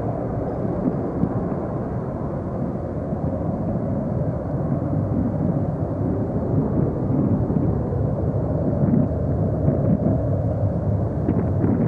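Boeing 737-200's Pratt & Whitney JT8D turbofans at take-off power, a steady deep jet rumble as the airliner climbs away.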